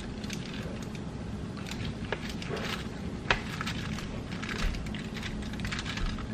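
Aluminium foil crinkling with scattered soft clicks as raw chicken breasts are handled and sliced with a knife on a foil-lined baking sheet, one sharper click about three seconds in.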